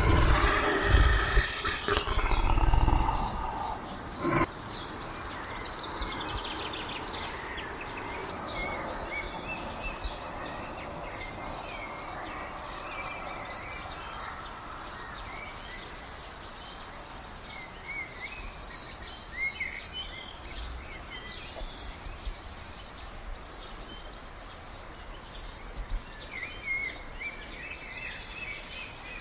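A big cat's growl trails off in the first few seconds. After that, many birds chirp and call over a steady outdoor ambience.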